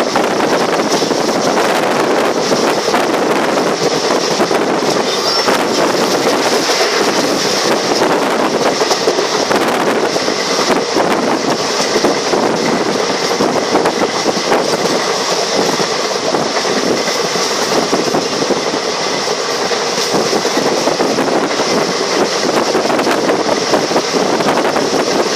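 Passenger train running along the track, heard from on board: a steady, loud rumble and rattle of the carriage.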